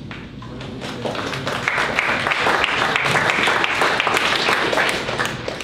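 Audience applauding, a room full of people clapping, swelling over the first two seconds and dying away near the end.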